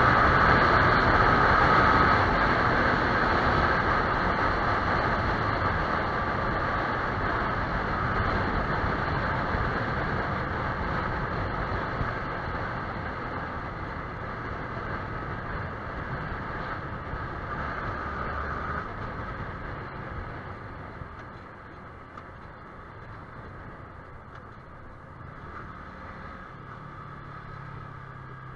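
Motorcycle on the move, a steady rush of engine and wind noise that fades gradually over about twenty seconds. Near the end it settles to a low steady hum.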